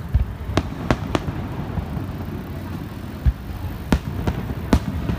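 Aerial fireworks shells bursting in a string of about eight sharp bangs, irregularly spaced with some in quick pairs, over a continuous low rumble.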